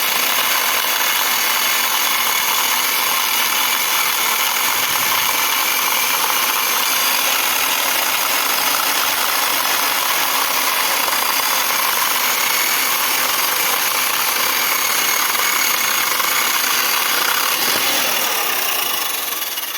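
405 mm electric chainsaw running steadily at full speed while cutting through wood; the sound eases off near the end.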